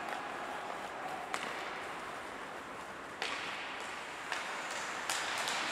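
Ice hockey play on a rink: sharp clacks of sticks and puck at irregular moments, with hissing scrapes of skate blades on the ice after about three seconds and again near the end.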